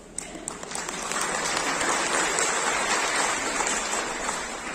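Congregation applauding: a few scattered claps at first, swelling into full applause, then fading near the end.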